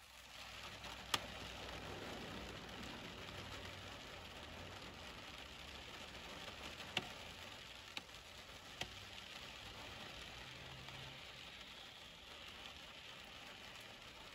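Rain falling on a vehicle, heard from inside: a soft, steady hiss of rain that swells up at the start, with a faint low hum beneath and a few sharp single taps of drops on the glass or roof.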